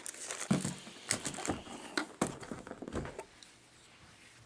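Plastic bag and bubble wrap crinkling and rustling as they are handled, in scattered crackles that die down after about three seconds.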